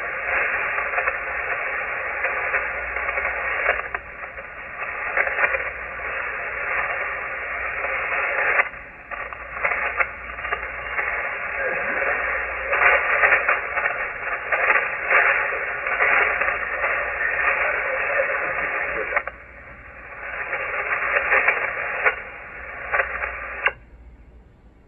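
Shortwave receiver audio from the 40-metre amateur band: static hiss and crackle, cut off above about 3 kHz, with a faint steady tone running through it. The sound swells and fades irregularly and drops away briefly near the end.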